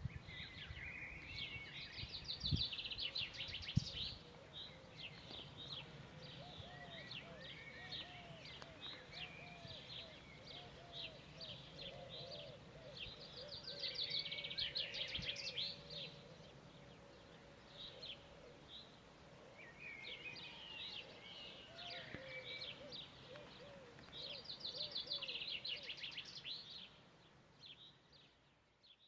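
Wild songbirds singing. A bright, fast trilling song comes three times, roughly every eleven seconds, among shorter chirps, and a lower, quickly repeated call runs through the middle stretch. A faint steady rumble lies underneath.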